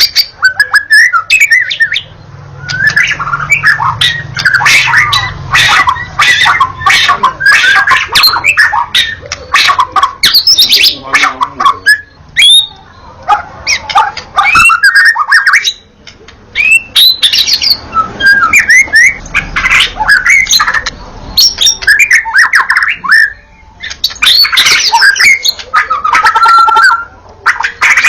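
White-rumped shama singing in long, rapid phrases of varied whistles, chattering notes and sharp clicks, broken by a few short pauses.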